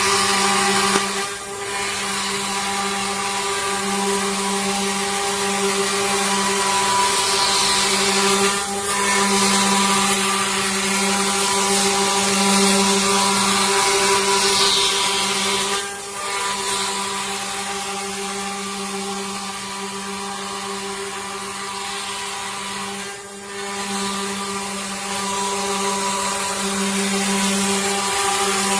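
CNC wood-carving router running, its spindle motor giving a steady whine over the hiss of the bit cutting wood, with brief dips about every seven to eight seconds.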